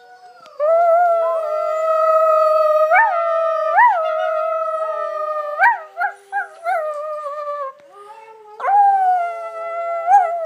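A long drawn-out howl: one held note of about seven seconds with a few short upward breaks in pitch, then after a brief pause a second shorter howl near the end.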